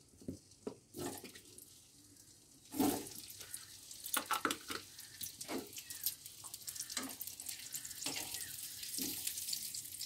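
Raw potato chunks dropped into hot oil in a steel kadai, each landing with a soft knock. From about three seconds in, the oil sizzles steadily with many crackles and pops as the potatoes start to fry.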